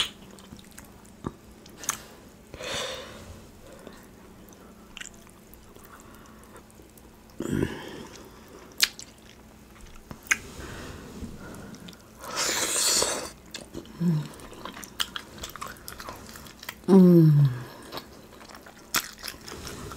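Close-miked eating of sauce-covered rotisserie chicken: wet chewing, squishing and lip smacking with scattered sharp clicks, and a longer hissing sound about twelve seconds in. Near the end comes a short, loud 'mmm' hum that falls in pitch.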